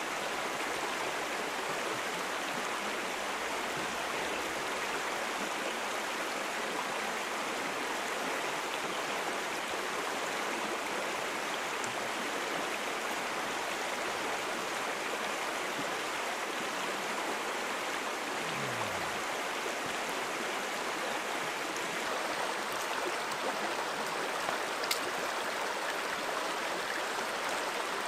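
Small rocky freestone stream flowing over a riffle, a steady rushing and burbling of water. A single light click comes near the end.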